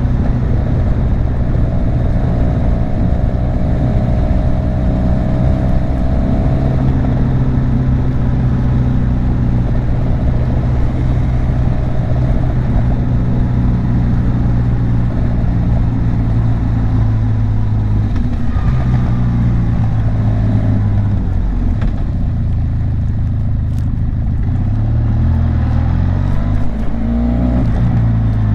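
Benelli TRK 502's parallel-twin engine and exhaust under way, mixed as engine and exhaust sound. It holds steady revs for most of the time, then in the last ten seconds the pitch drops and climbs again as the revs change.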